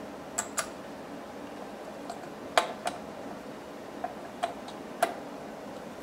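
Screwdriver and metal parts clicking as a CPU heatsink is screwed down onto its mounting brackets: about nine short, sharp clicks at irregular spacing, two of them louder, about two and a half and five seconds in.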